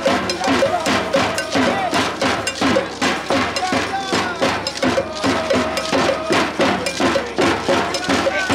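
Street procession percussion struck in a fast, even beat, about four or five strikes a second, with voices chanting or singing over it.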